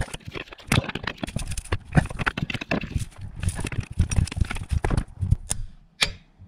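Ratchet wrench clicking in quick, uneven runs as a tight bolt is worked down by hand, with knocks of metal tools.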